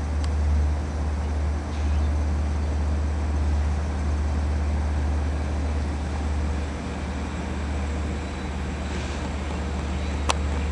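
Steady low rumble of an LIRR diesel locomotive running at the station, with one sharp click near the end.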